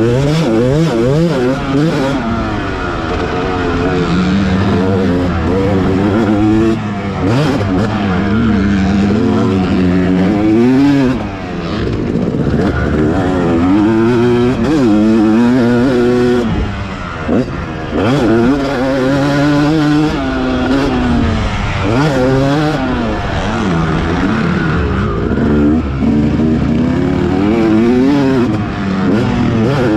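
Yamaha 250 single-cylinder dirt bike engine ridden hard, its pitch climbing again and again as it revs out through the gears and falling as the throttle is rolled off, with wind and dirt noise under it. It goes briefly quieter twice, about 11 and 17 seconds in.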